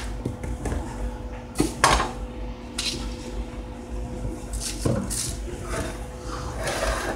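Kitchenware handled on a counter: a few scattered knocks and clatters as a mixing bowl and a can of tomato sauce are moved and set down, over a faint steady hum.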